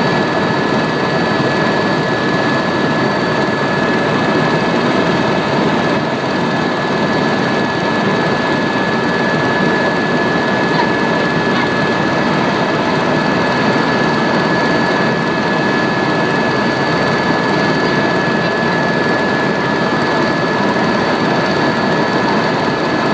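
Helicopter turbine engine and rotors running steadily in flight: a loud, even noise with a steady high-pitched whine on top.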